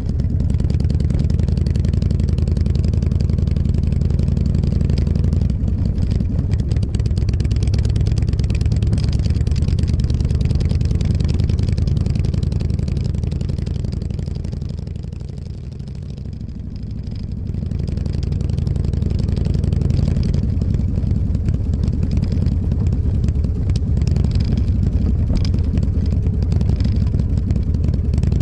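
Motorcycle engine running steadily while riding, easing off about fifteen seconds in and picking back up a few seconds later.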